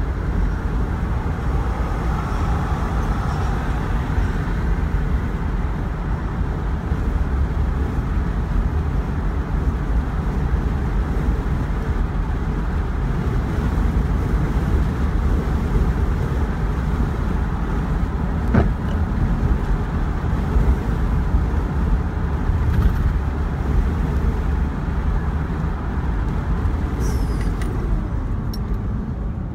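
Steady road noise of a car's tyres and engine heard from inside the moving car's cabin, strongest in the low rumble, with one brief click about two-thirds of the way through.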